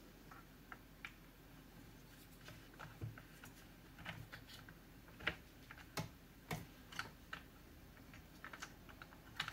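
Irregular light clicks and taps of plastic parts being handled and fitted into the plastic handle housing of an EGO cordless leaf blower. A few louder clicks come in the second half.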